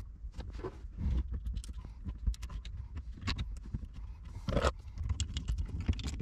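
Hands fitting wire ring terminals and the bolt onto a battery's negative terminal: scattered small clicks, taps and scrapes of metal and plastic, with a louder knock about four and a half seconds in.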